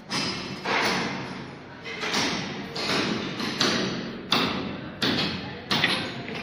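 Footsteps crunching over broken floor tiles and cement rubble: a run of sudden gritty crunches at walking pace, roughly one every two-thirds of a second.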